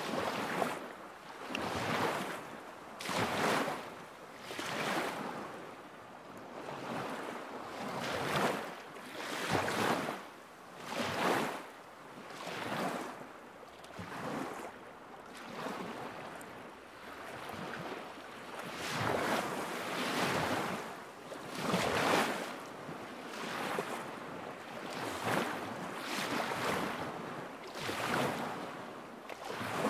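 Small waves lapping against a lakeshore, a soft splashing wash about every second or so.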